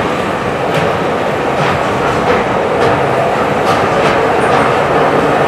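Miniature ride-on train rolling along its narrow-gauge track: a steady running noise, with the wheels clicking over rail joints about once a second.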